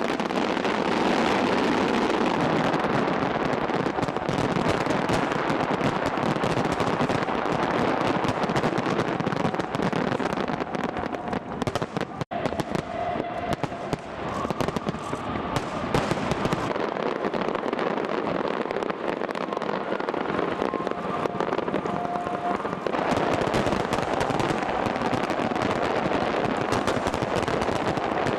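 Massed fireworks display: a dense, unbroken barrage of shells bursting with crackling and banging, with a momentary drop about twelve seconds in.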